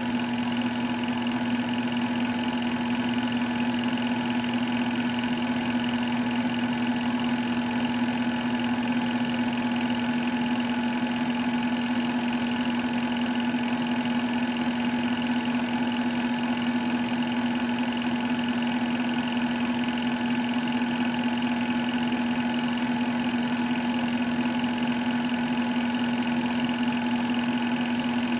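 Sears 'Tower' film projector running with a steady mechanical hum of motor and fan, its pitch unchanging. A fainter low hum drops out about ten seconds in.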